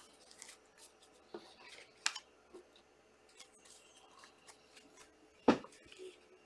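Trading cards and plastic card holders being handled on a table: soft rustling and light clicks, with a sharp tap about two seconds in and a louder one about five and a half seconds in.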